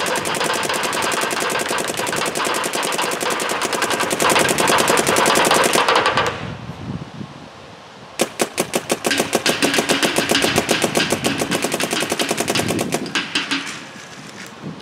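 Dye M3+ electronic paintball marker firing rapid strings of shots in NXL ramping mode: a long string for about six seconds, a pause of about two seconds, then a second rapid string of about five seconds.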